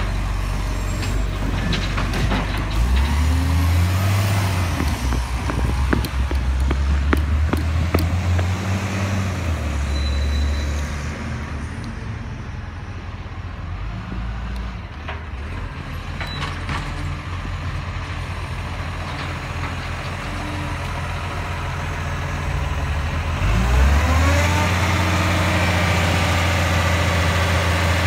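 Side-loading garbage truck's diesel engine moving along the street, revving up and easing off, then running quieter for a while. About three-quarters of the way through it revs up quickly and settles into a steady, louder run as the truck stops beside the bins. There are a few sharp clicks and hisses in the first part.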